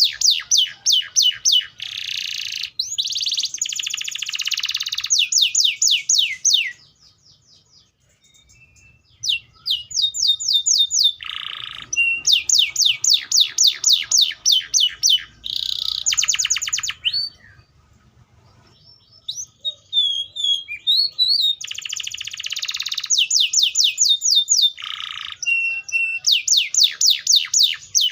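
Canary (Serinus canaria) singing in fast trills of repeated down-slurred notes, mixed with dense buzzy rolls. The song breaks off briefly twice, about seven and seventeen seconds in.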